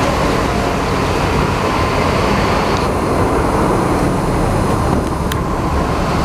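Bus engine running with a steady low rumble over a constant hiss. The hiss thins a little about three seconds in, and a single sharp click comes near the end.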